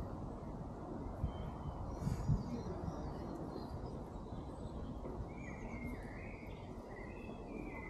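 Outdoor ambience: a steady low rumble of background noise with a few low thumps about two seconds in, and several short bird chirps, most of them in the second half.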